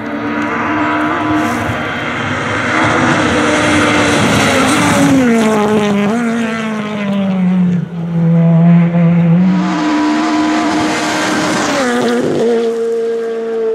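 Peugeot 208 rally car at full stage pace. The engine note falls in steps as it brakes and downshifts for a bend, then rises again as it accelerates hard past, with stones kicked up from the road near the end.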